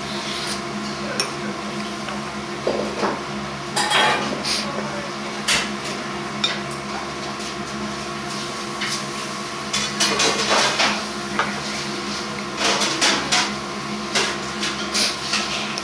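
Dishes and cutlery clinking and knocking now and then at a restaurant table, over a steady mechanical hum.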